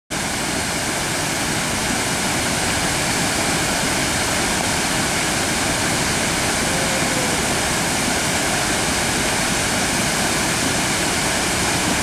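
Waterfall pouring over rock ledges into a river: a loud, steady rush of falling water.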